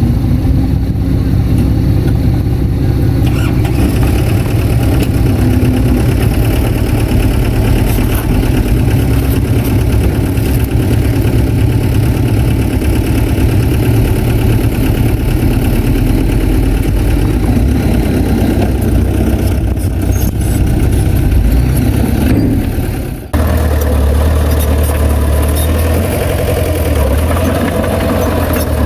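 Heavy earthmoving machinery's diesel engine running steadily and loudly close by. About three-quarters of the way through the sound breaks off for an instant and resumes with a deeper, heavier engine note.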